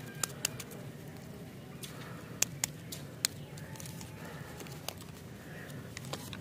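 A lollipop wrapper being peeled open by hand: a handful of sharp, separate crackles and ticks as the wrapper is pulled, over a steady low hum.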